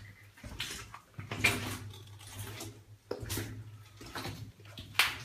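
Footsteps splashing through shallow water on the floor of a rock mine tunnel, a little more than one step a second.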